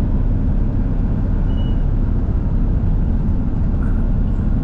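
Steady road and engine noise heard from inside a moving vehicle's cabin at highway speed: a constant low rumble.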